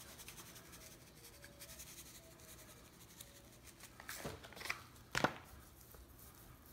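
Faint rustle of dry rub being shaken from a pouch onto raw Cornish game hens, then a few soft knocks four to five seconds in, the sharpest about five seconds in, as the pouch is put down on the counter and hands begin working the rub into the birds.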